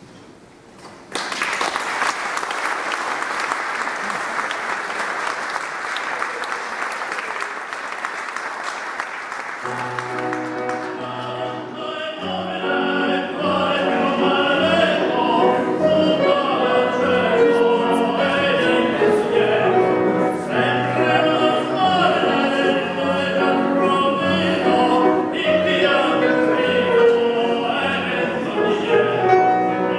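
Audience applauding for about eight seconds. Then a grand piano starts playing, accompanying operatic singing.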